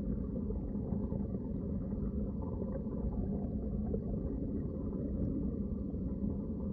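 Underwater ambience: a steady, muffled low rumble of moving water.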